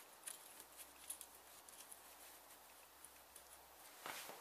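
Near silence: faint room hiss with a few light ticks of a gloved hand working a small nut onto the front suspension, and a brief rustle near the end.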